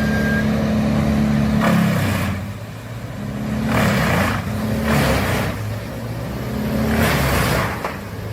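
A heavy machine's engine running steadily, with four separate harsh rushes of noise over it, each lasting about half a second.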